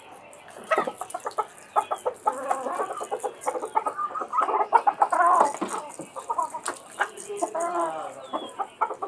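A flock of Australorp and desi chickens clucking while they feed, with many short calls overlapping in an irregular stream that starts about a second in.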